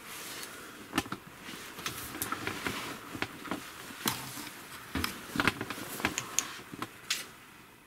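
Irregular sharp knocks and clicks, about a dozen, over a steady rustling.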